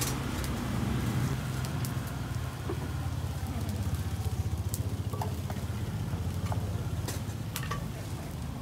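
Street-market background noise: a steady low rumble with a hissing haze and scattered sharp clicks and taps.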